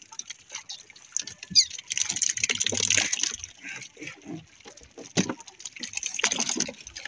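Water sloshing and splashing around a small wooden outrigger boat, loudest about two to three seconds in, with scattered small knocks and clicks from handling the fishing line and boat.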